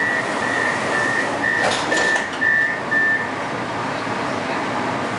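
Door-closing warning of a Moscow Metro 81-765 'Moskva' train: a high beep repeating about twice a second while the sliding doors close with a brief rush and clunk about two seconds in. The beeping stops a little after three seconds, leaving the steady hum of the car.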